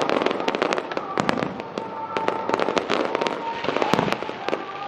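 Aerial fireworks going off in a dense barrage: many sharp bangs and crackling reports each second, from shell bursts and low crackling effects.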